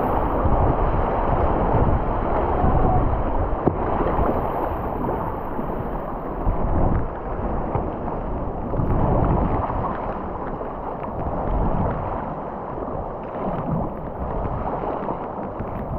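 Rushing river water splashing and churning against a kayak's bow, with wind rumbling on the microphone. The rush slowly eases toward the end as the boat leaves the rapid for calmer current.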